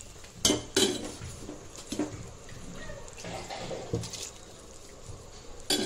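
Soaked rice being added by the spoonful to boiling water in a metal pot: a slotted metal spoon knocks against the pot several times, the two loudest knocks about half a second in, with soft splashing and bubbling between.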